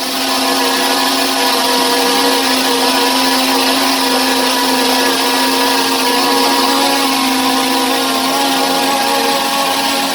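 SJRC F11 quadcopter's brushless motors and propellers running steadily: an even, many-toned buzzing whine that holds its pitch.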